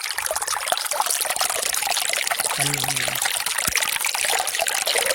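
Small spring-fed stream of water running over rocks, heard up close with the microphone held low by the water: steady trickling and splashing.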